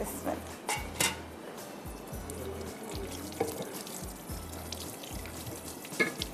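A kitchen tap running faintly as hands are washed at a sink, over soft background music with a regular bass beat. There are a few light clicks of crockery being handled, about a second in and again near the end.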